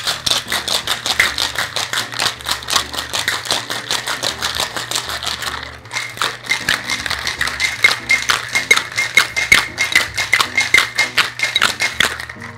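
Ice rattling hard in a metal cocktail shaker shaken rapidly by hand, in a fast even rhythm, in two bouts with a short break about six seconds in.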